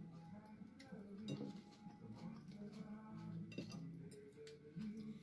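A metal fork clinking lightly against ceramic plates a few times, the clearest clinks about a second in and again past the middle, over a faint steady background tone.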